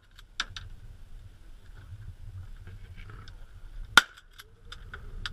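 A few sharp clicks and knocks, with one loud, sharp crack about four seconds in, over a low outdoor rumble.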